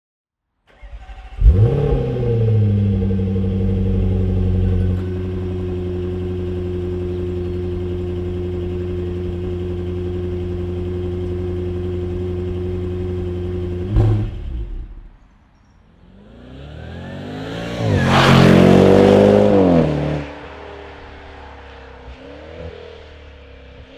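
2020 Range Rover Velar SVAutobiography's 5.0-litre supercharged V8 starting with a loud flare of revs, settling to a fast idle and then a lower steady idle, which cuts off about fourteen seconds in. After a short lull the V8 comes up again, revving hard with rising and falling pitch as the car passes, loudest around eighteen to twenty seconds in, then fading as it drives away.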